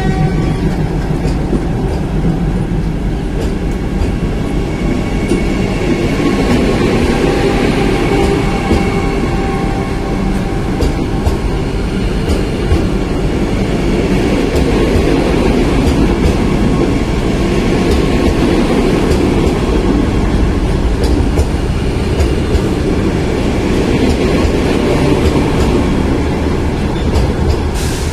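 Vande Bharat Express electric multiple-unit train pulling away and running past at close range: a steady loud rumble of the coaches and wheels on the track, with a faint whine about a third of the way through.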